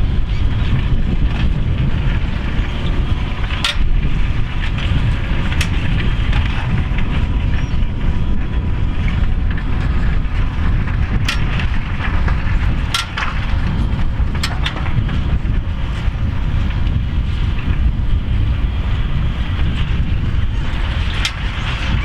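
Fendt 724 tractor working steadily under load, pulling a five-furrow plough up a steep bank, with wind buffeting the microphone. A few sharp cracks or clicks stand out over the steady noise.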